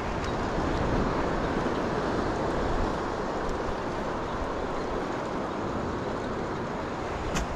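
Steady rushing noise of wind on the microphone and sea surf, with a brief click near the end.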